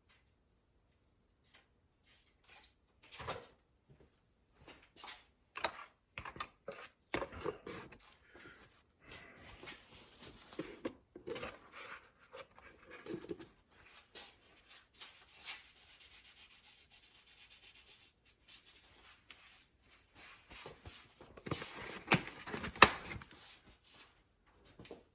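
Irregular hand scraping and rubbing strokes of a tool working quick-setting plastic repair filler, louder clusters near the middle and again near the end, with a sharp click shortly before the end.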